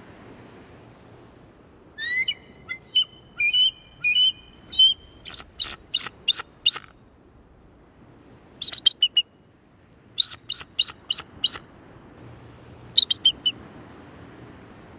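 Eagle calling: bursts of high, thin, piping chirps in quick series, about four runs of notes separated by short pauses, over a faint steady hiss.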